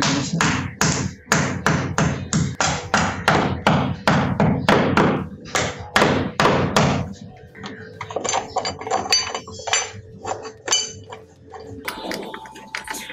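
A small hammer tapping a plastic wall plug into a drilled hole in a ceramic wall tile, with quick, even blows about two or three a second. About seven seconds in the blows give way to lighter taps.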